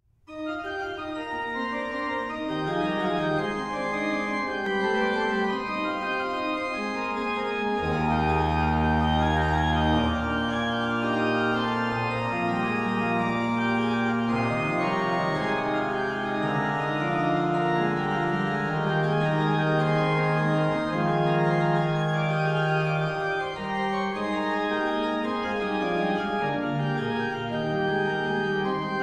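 Organ music: slow, sustained chords that change every second or two, with a deep bass note held for a couple of seconds about eight seconds in.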